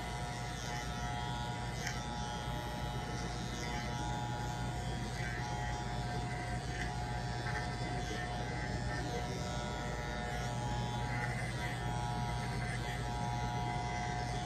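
Electric hair clippers running with a steady buzz while cutting a man's hair.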